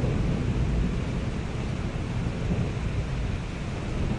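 Steady rain, an even hiss with a continuous low rumble underneath and no separate drops or claps standing out.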